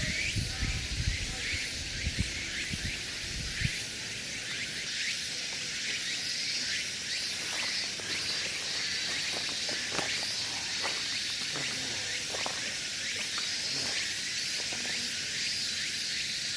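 A steady outdoor chorus of insects chirping, high-pitched and dense. There are low rumbling thumps in the first few seconds, and a few faint short calls or clicks near the middle.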